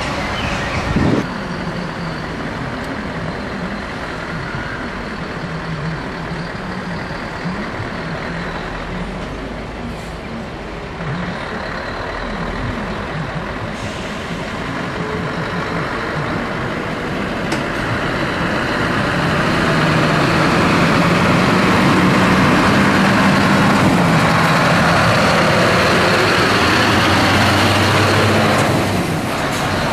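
Scania V8 diesel truck engine running on the road, its pitch rising and falling as the revs change. It grows louder and steadier about two-thirds of the way through, then falls away near the end.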